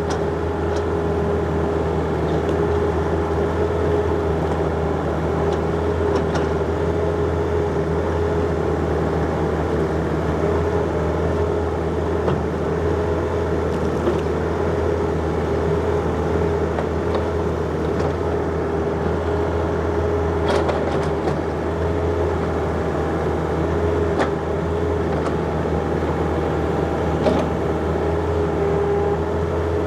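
John Deere 50ZTS mini excavator running steadily as it digs, its diesel engine humming under a constant whine, with a few sharp knocks about twenty seconds in and again near the end.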